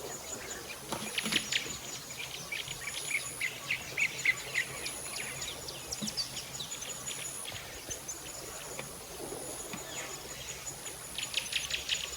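Outdoor ambience: an insect's high, thin trill that keeps stopping and starting, with many short bird chirps over it.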